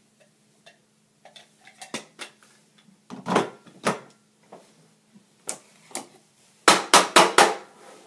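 Hard plastic coffee-grinder parts knocking against a wooden countertop: a few scattered clunks as the blade grinder is set down, then a quick run of about five loud knocks near the end as the burr grinder's plastic grounds bin is handled.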